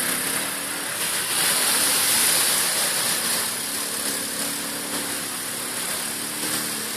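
ATV engine running, a steady mechanical drone that swells slightly about a second in and then eases off.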